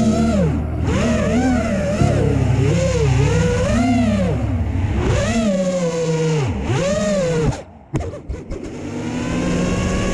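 Brushless motors of a 5-inch FPV quadcopter (DYS Samguk Shu 2306 2500KV with HQProp tri-blade props) revving up and down rapidly in pitch as the throttle is worked through freestyle moves. About three-quarters through the throttle drops off and there are a few brief knocks. The motors then settle into a steady, even hum.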